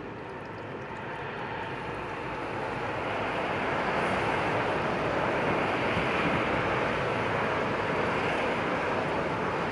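A steady rushing noise that swells over the first few seconds and then holds.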